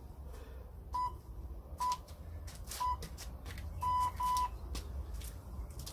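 Workout timer's round signal: three short beeps about a second apart, then two longer beeps in quick succession, marking the start of a new round.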